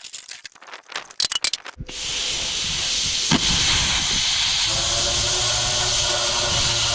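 Plasma cutter running: after a few light clattering knocks, a loud steady hiss of rushing air starts about two seconds in, and a steady hum joins it about five seconds in.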